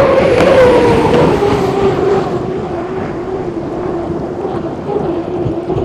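Unlimited hydroplane's turbine engine whining, its pitch sliding steadily down and the sound growing fainter.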